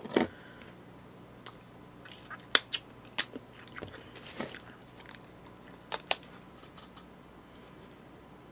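Scattered sharp clicks and taps of plastic takeaway food containers and lids being handled, with a spoon knocking against them; two quick clicks close together about six seconds in.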